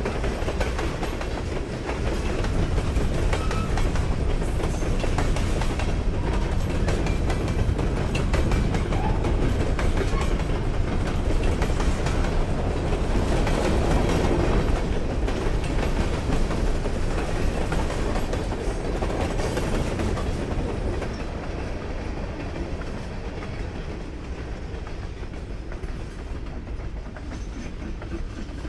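Freight cars of a long train rolling past close by, their steel wheels clicking over the rails in a steady clickety-clack with a low rumble underneath. The sound eases somewhat over the last third.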